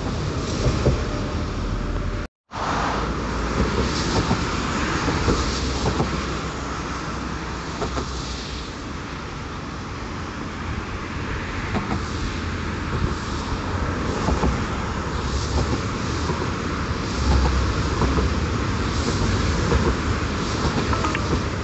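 Electric trains running over a steel truss rail bridge, mixed with steady road traffic and low wind rumble, with faint clicks from the wheels. A brief total dropout comes about two and a half seconds in. An electric commuter train draws closer and is louder near the end.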